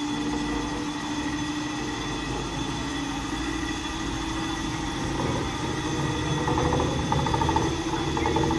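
D51 steam locomotive being swung round on a turntable: a steady mechanical hum with thin high whining tones, and a rapid pulsing that joins in about six and a half seconds in.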